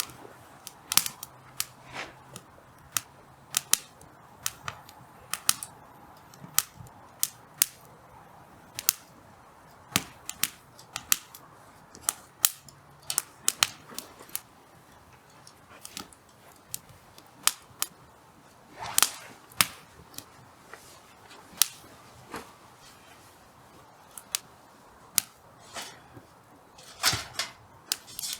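Hardwood firewood burning in a campfire, crackling with irregular sharp pops over a faint hiss, at times several a second, with a cluster of louder pops about two-thirds of the way through.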